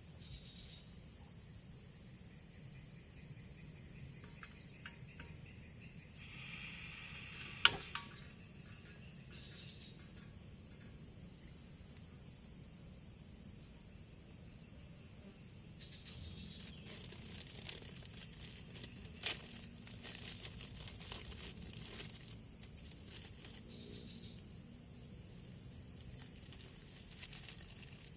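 Steady, high-pitched chorus of forest insects, crickets or similar, running without a break. A few sharp knocks cut through it, a loud one about eight seconds in and another cluster around nineteen to twenty-two seconds.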